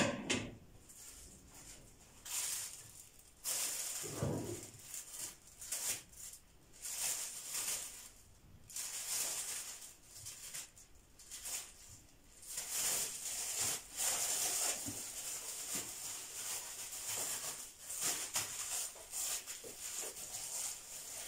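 Thin plastic food bags rustling and crinkling in repeated bursts as orange slices are packed into them by hand, with a sharp knock right at the start.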